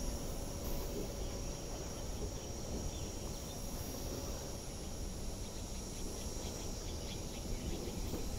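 MTR West Rail Line electric train rolling slowly along the track with a low, steady rumble, under a steady high-pitched chirring of insects.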